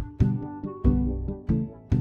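Instrumental background music with pitched notes over a steady beat of strong percussive strokes.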